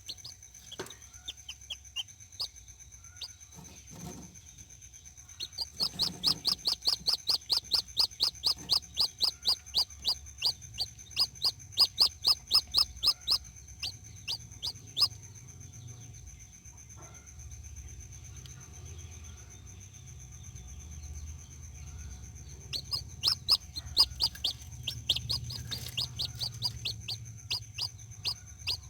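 Newly hatched chicks peeping: fast runs of short, high, falling peeps at about four a second, with a quieter gap in the middle, over a faint steady high whine.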